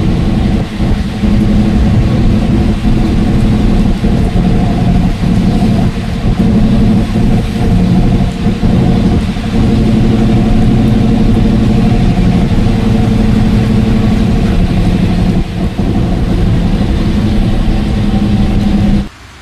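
A motor vehicle's engine running with a steady, loud hum that cuts off abruptly near the end.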